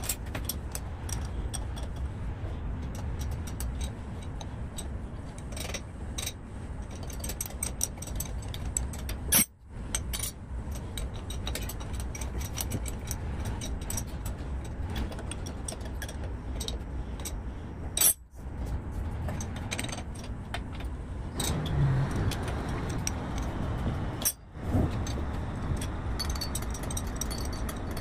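Wrenches and steel valve parts clicking and clinking as a forklift's multi-section hydraulic control valve is worked apart by hand, over a steady low hum. The sound breaks off sharply for a moment three times.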